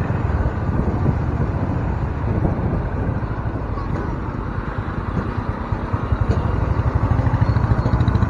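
Honda H'ness CB350's single-cylinder engine running under way, a steady low exhaust beat that grows louder near the end as the bike pulls away, with wind noise on the microphone.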